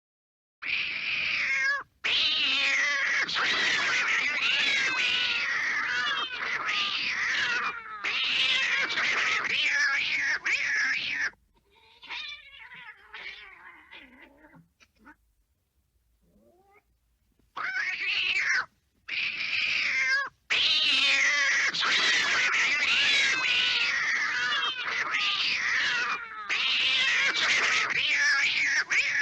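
Cartoon cat screech and yowl sound effects, one after another: a long stretch of loud, wavering screeching, then fainter cries, two short yowls, and another long loud screech near the end.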